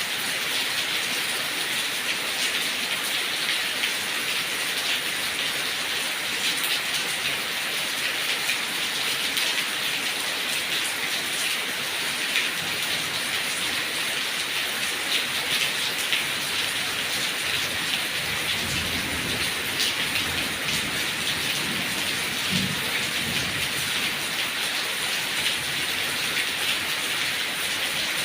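Heavy rain falling steadily: a dense, even hiss with scattered drop taps. A low rumble rises and fades about two-thirds of the way through.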